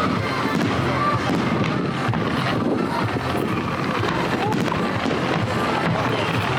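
Fireworks crackling and popping continuously in a dense steady stream, with no single large boom.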